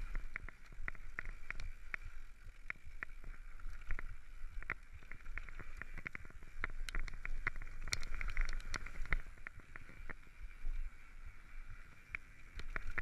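Mountain bike descending a loose gravel trail: tyres crunching over stones, with frequent irregular clicks, knocks and rattles from the bike over a low rumble.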